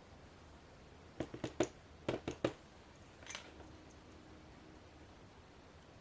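Short sharp clicks and taps from handling an American 5200 padlock's parts during reassembly: four quick clicks about a second in, three more around two seconds in, then a brief soft scrape.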